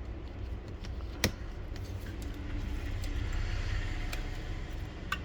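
Plastic clicks and light knocks of a laser printer's fuser unit being handled and opened, with one sharp click a little over a second in and another near the end, over a steady low hum.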